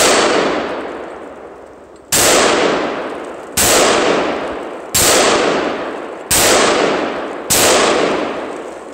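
Bushmaster XM15 QRC AR-15 rifle in .223/5.56 fired six times, single shots about one and a half to two seconds apart, each followed by a long fading tail.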